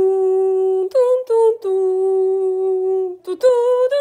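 A single voice sings a short wordless tune: a long held low note, two short higher notes about a second in, the long low note again, then a higher note near the end.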